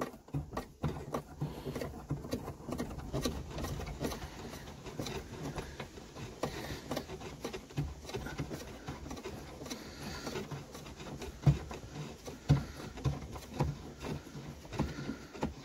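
Fingers unscrewing the wing nut that holds a Ford Fusion's rear light unit on a long thread, giving irregular small clicks, scrapes and rustles of the nut and the wiring around it.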